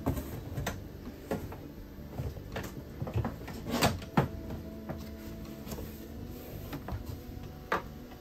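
Scattered knocks, clicks and rustles of electrical cable being handled and pulled inside an RV kitchen cabinet, with the loudest knocks about four seconds in, over a faint steady hum.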